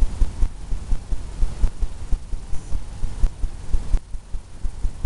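Low, uneven throbbing rumble with a few faint ticks.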